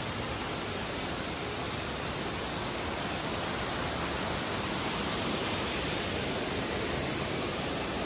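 Waterfall rushing: a steady, even noise that holds the same level throughout.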